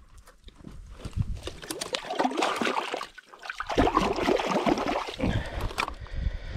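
Shallow lake water splashing and sloshing as a hand works in it at the rocky shore, in two stretches with a short break a little past halfway.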